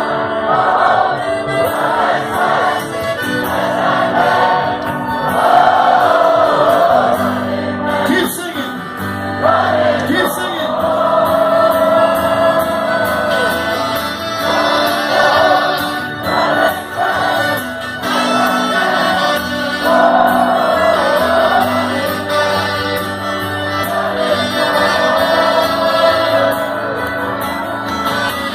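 Live folk band playing a song with singing, accordion, fiddle and acoustic guitar, loud and continuous.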